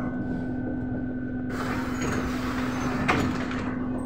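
Inside a moving BKM-321 trolleybus: a steady electric hum from the drive. Midway a hiss rises for about a second and a half, and a sharp click comes near the end.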